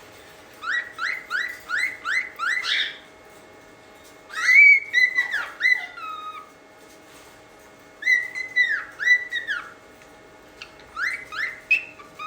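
Cockatiel whistling in bursts: a quick run of about six short notes, then groups of longer clear whistled notes with pauses between.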